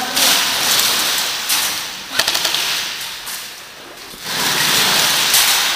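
Airsoft guns firing rapid bursts, a dense rattle with a few sharp cracks, loud near the start, easing off in the middle and building again from about four seconds in.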